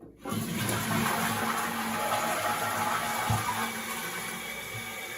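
Toilet cistern flushed, with a sudden rush of water about a quarter second in, then the cistern refilling through its old float fill valve at full supply pressure, with a steady rushing noise that eases slowly. The noise is typical of a fill valve not built for the pressure coming in from the pipe.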